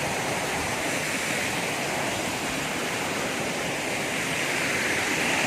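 Waterfall rushing: a steady, even roar of falling water on a river.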